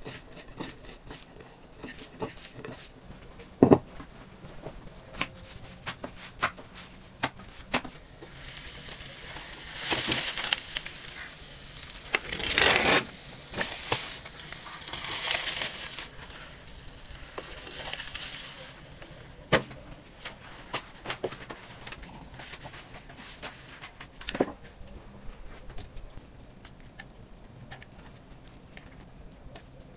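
Cooking and food-handling sounds: scattered small clicks and knocks, with several rustling, crackling bursts of a second or two through the middle stretch.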